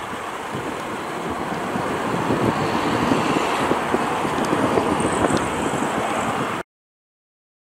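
Jet noise from a Boeing 737-800's two CFM56-7B turbofan engines at takeoff thrust as the airliner climbs away, a loud steady roar. It cuts off abruptly near the end.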